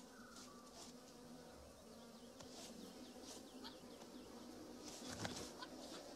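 Faint buzzing of a flying insect, wavering in pitch, over quiet mountain ambience with scattered short high chirps. About five seconds in comes a sharp click with a low thud.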